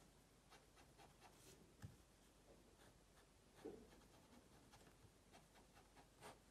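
Fine-liner pen scratching on sketchbook paper in many short, quick strokes, faint, with one slightly louder rub about three and a half seconds in.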